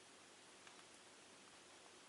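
Near silence: a steady faint hiss with a few faint, short ticks.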